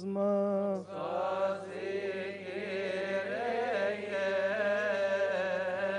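Coptic Orthodox liturgical chant: a held sung note ends about a second in. A slow, ornamented chant follows, its pitch wavering over long drawn-out syllables.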